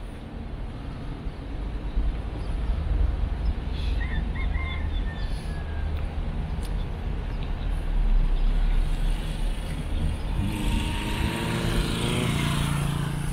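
A car driving on a paved street, heard from inside the cabin with the window open: a steady low rumble of tyres and wind. Near the end a second engine comes close and passes, its pitch falling.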